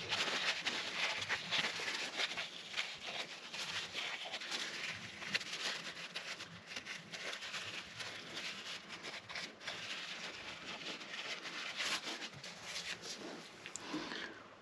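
Cloth wiping and rubbing over the cylinder head's bare aluminium cam seats, cleaning them before assembly lube goes on: a steady scratchy rustle broken by small clicks and knocks, which cuts off suddenly at the end.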